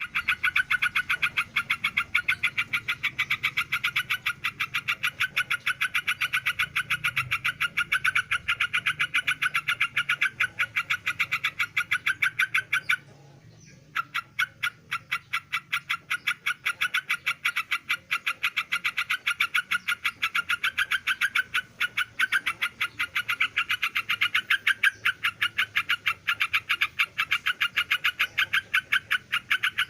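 Yellow-vented bulbul (trucukan) calling in a rapid, very regular series of short notes, about four a second, with one pause of about a second roughly thirteen seconds in. The calling is presented as a sign of a bird in breeding condition.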